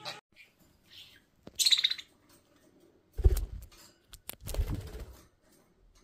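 Budgerigar giving a loud, high chirp about a second and a half in, after a couple of faint short chirps. It is followed by two loud low thumps with rustling, about 3 and 5 seconds in, as the bird moves right against the microphone.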